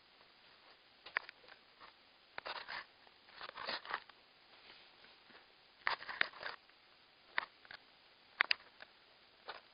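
Irregular short clicks and brief rustling bursts, a few seconds apart: close handling noise.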